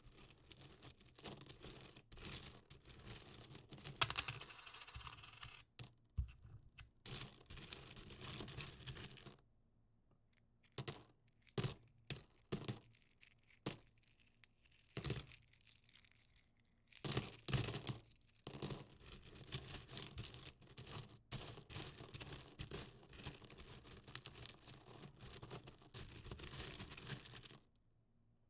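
Coins clinking and jingling in dense runs, broken by short pauses. In the middle stretch there are a handful of separate sharp single clinks.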